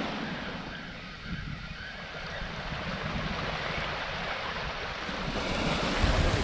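Small waves washing up a pebble beach and drawing back, with wind buffeting the microphone; the surf swells louder near the end.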